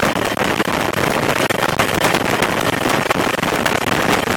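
Helicopter engine and rotor noise heard from inside the cabin in flight, a loud, steady rushing.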